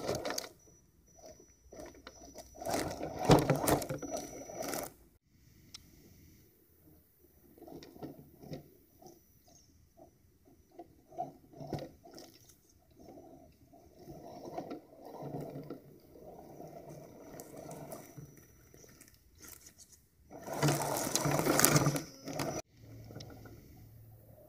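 Axial SCX10 Trail Honcho RC rock crawler working over logs and forest ground: a faint high whine from its electric drivetrain, tires and chassis scraping and crunching on wood, twigs and dirt. Two loud stretches of rushing, scraping noise come about three seconds in and again about twenty seconds in.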